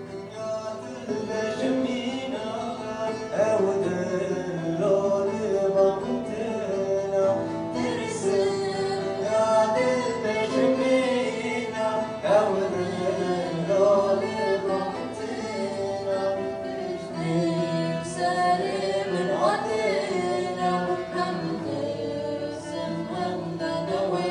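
Live folk song: a bağlama (long-necked saz) and an acoustic guitar played together under a young male voice singing.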